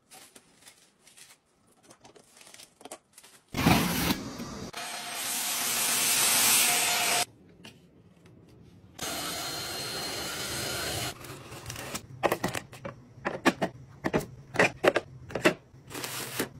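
A stick vacuum cleaner's motor running for about four seconds, starting with a loud burst and cutting off suddenly. After a short pause it runs again, steadier and a little quieter, for about two seconds. Faint rustling comes before it, and a quick run of light clicks and rustles of plastic and paper being handled comes after.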